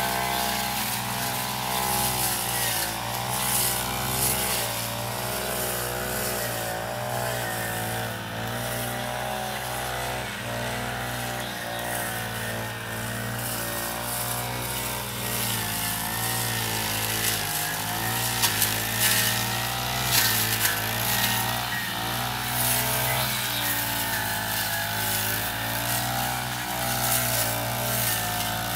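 Petrol brush cutter running steadily at working speed, its pitch wavering slightly as it cuts through tall grass and weeds, with a few sharp cracks about two-thirds of the way through.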